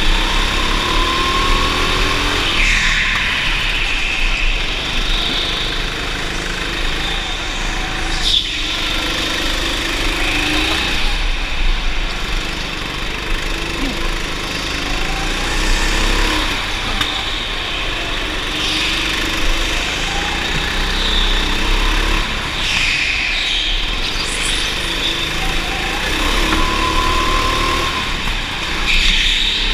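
Go-kart engine running hard at close range on a lap, its note rising and falling repeatedly with the throttle through the corners.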